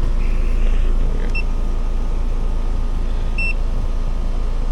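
Air-conditioning condensing unit running, with its compressor and condenser fan giving a steady low hum. Two short, high electronic beeps sound about two seconds apart.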